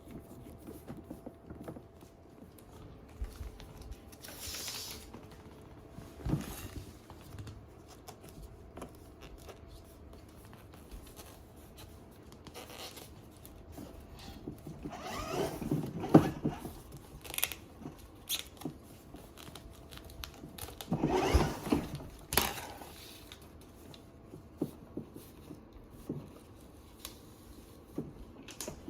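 Handling noises while putting a plastic ride-on toy together: scattered clicks and knocks of parts, with three longer rustling, scraping sounds.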